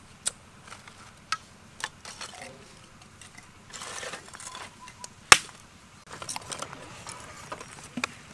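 Sharp cracks and knocks of dry kindling sticks being split, snapped and set into a clay charcoal stove, a few separate cracks with the loudest about five seconds in. A short burst of rustling comes just before it.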